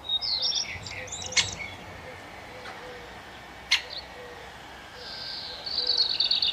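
Songbirds singing: a burst of high, quick chirps right at the start, two sharp clicks, and a fast, high trill that builds near the end.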